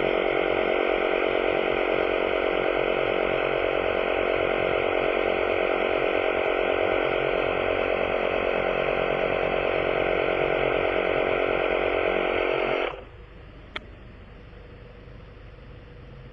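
A small electric motor-driven tool running steadily with a strong, even hum, then switched off abruptly about thirteen seconds in, followed by a single sharp click.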